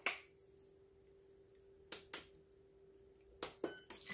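A handful of faint, sharp knocks and clicks from a wooden spatula against a pot of chili, over a steady low hum.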